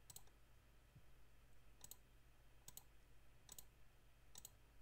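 Faint computer mouse clicks, five in all, spaced roughly a second apart, over a low steady hum.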